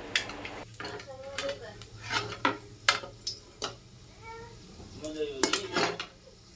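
Metal utensils clinking and scraping against pots and dishes in a series of sharp clinks, with voices talking in the background.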